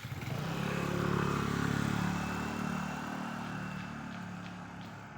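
A motor vehicle passing by: its engine note comes up quickly, is loudest a second or two in, then fades away.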